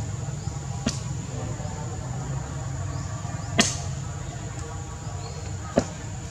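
Three sharp clicks or snaps, the loudest about halfway through, over a steady high insect whine and a low rumble.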